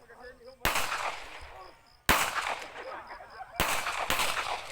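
Three pistol shots about a second and a half apart, each with a sharp crack and a long fading echo.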